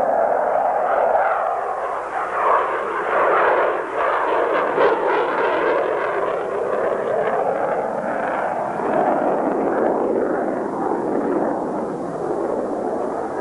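Grumman X-29's single General Electric F404 turbofan giving a steady, continuous jet noise as the aircraft flies by in the air.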